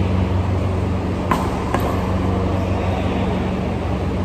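Steady hum of the badminton hall's air coolers, with two sharp racket hits on a shuttlecock in quick succession about a second and a half in.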